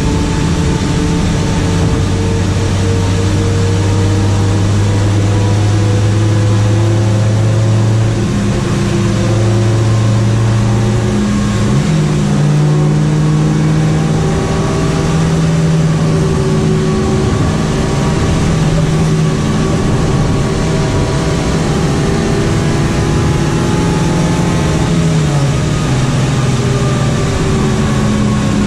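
Honda Civic hatchback engine running at steady revs, heard from inside the cabin over steady road noise. Its pitch steps up a little about a third of the way in, jumps higher a few seconds later and drops back near the end.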